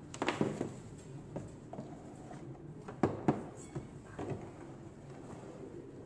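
Handling noise from unboxed camera equipment being moved about: scattered clicks and knocks, with two sharper knocks about three seconds in.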